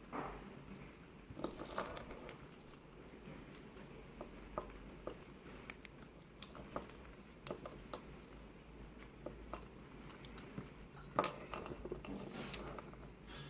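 Scattered small clicks and faint scrapes of a pin-tumbler lock and its tools being handled as the lock is taken apart, a few sharper ticks standing out among them.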